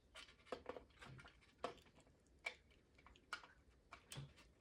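Faint, scattered clicks and taps of plastic toy parts being handled and tried in place, about eight light knocks at uneven intervals, as the ghost trap's motor and handle pieces are fitted back into the housing.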